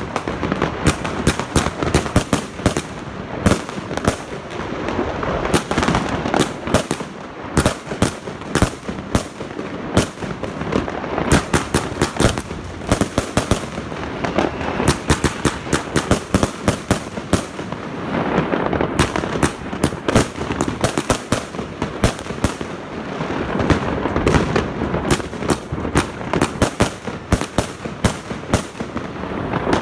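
Zena 144-shot firework cakebox firing: a rapid, unbroken volley of shots and aerial bursts, several a second.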